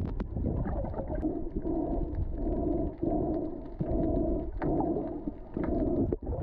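Muffled underwater sound picked up through an action camera's housing, with a run of about six short, low pulses.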